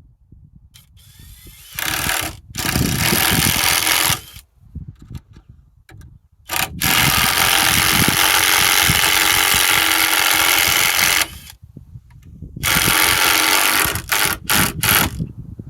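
A handheld electric power tool run in repeated bursts with a steady motor whine: a couple of short runs about two seconds in, a long run of about five seconds in the middle, then another run and several quick on-off triggers near the end.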